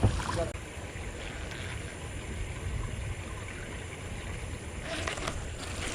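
Steady rushing of water from a small waterfall, an even noise with a deep rumble underneath.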